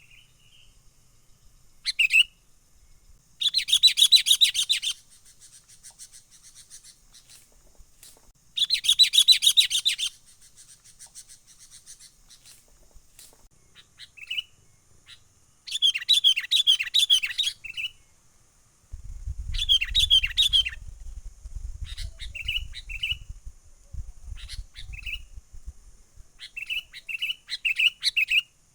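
Sooty-headed bulbul (kutilang) singing in full, excited song: several loud bursts of fast chattering notes, with short whistled phrases between them. A low rumble joins in from about two-thirds of the way through.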